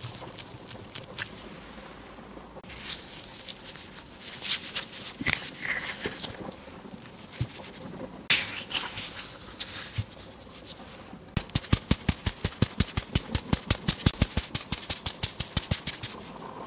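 Thin plastic gloves crinkling as hands press and shape soft glutinous rice dough, with scattered small clicks and rustles. A bit past two-thirds of the way through comes a fast, even run of light taps, about seven a second, as a fine-mesh sieve is tapped to dust cocoa powder over the rice ball.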